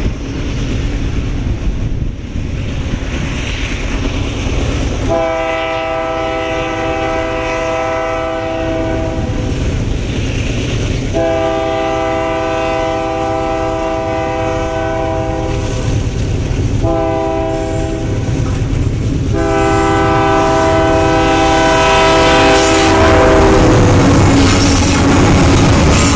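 Union Pacific diesel freight locomotives approach with their engines rumbling and sound their multi-note horn in the long, long, short, long pattern of a grade-crossing signal. As the locomotives pass, a growing clatter of loaded coal hopper wheels over the rails takes over near the end.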